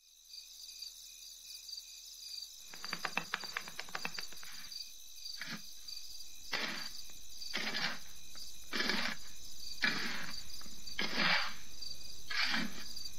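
Crickets chirping in a steady pulsing trill. From about three seconds in, a run of rough scraping strokes comes about once a second, growing louder.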